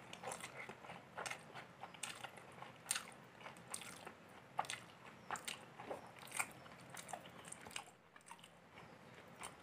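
Close-up eating sounds of polao rice and chicken curry eaten by hand: chewing and soft wet mouth smacks, with fingers squishing rice on the plate, as irregular short clicks.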